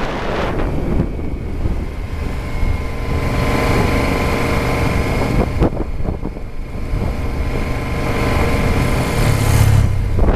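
Honda Varadero 1000's V-twin engine running while riding, with wind buffeting the microphone; the engine grows louder near the end.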